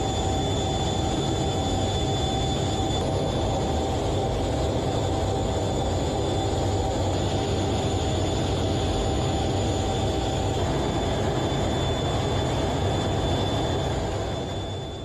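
Steady in-flight noise heard from inside a military jet aircraft: a continuous low rumble and rush of air with a few steady whining tones over it.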